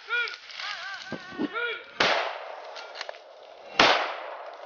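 Two gunshots about two seconds apart, each a sharp crack with a trailing echo, the second the loudest sound here. They follow a run of short yelping calls that rise and fall in pitch.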